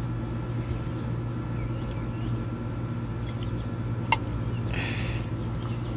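Steady low outdoor background hum, with a single sharp click about four seconds in and a brief higher-pitched sound just after it.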